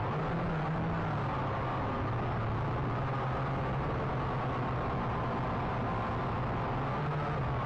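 Syma X8C quadcopter's motors and propellers running steadily, heard through its own onboard camera: a constant buzzing hum whose pitch wavers slightly and lifts briefly near the end.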